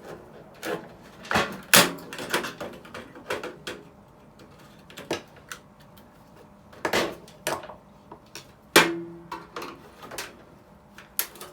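Irregular clicks, knocks and clatter of hand tools and sheet-metal parts being handled while a microwave oven is taken apart for scrap, with two louder knocks about two seconds in and near nine seconds in.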